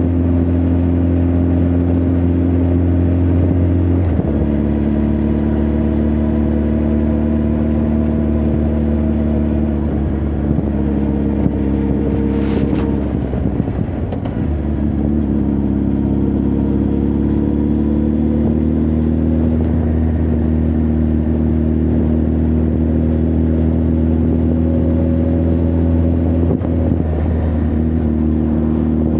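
Honda CB1300 Super Bol d'Or's inline-four engine and exhaust under way, running steadily. The pitch steps down at a gear change about four seconds in, drops out briefly with a click about halfway through as the throttle is rolled off and the next gear taken, then climbs slowly under acceleration, with another small step near the end.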